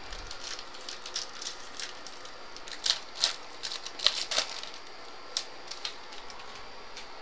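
A sports-card pack being torn open and its wrapper and cards handled: irregular crinkling, crackling and clicks, busiest from about three to four and a half seconds in.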